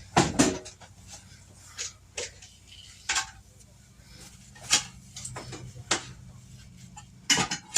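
About a dozen short, scattered knocks and clicks of household clatter, with a cluster of them near the end, over a faint steady low hum.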